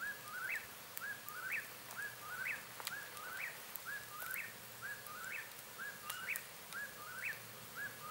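A bird calling over and over, a short phrase ending in a quick rising note, about once a second, with faint crackling of a wood campfire.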